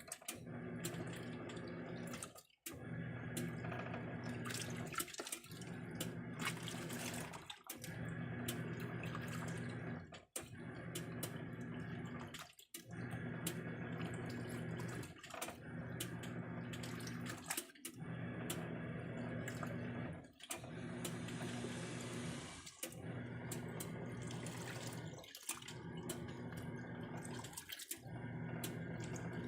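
Plenna washing machine agitating: a steady motor hum over sloshing water, cutting out briefly about every two and a half seconds as the agitator changes direction.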